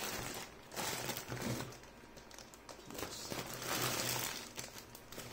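Plastic protective bag around a new laptop crinkling as it is handled and pulled at by hand, in several rustling bouts, the loudest about three to four seconds in.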